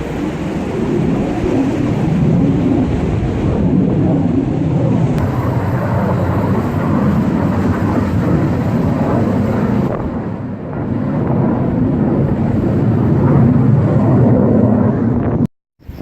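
Strong wind buffeting the microphone, a loud rumbling noise that swells and eases. It cuts off abruptly near the end.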